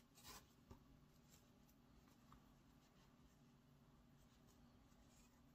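Near silence with faint rustling of acrylic yarn being pulled and tied in a knot on a crocheted hat. A brief soft rustle comes about a quarter second in, followed by a small click.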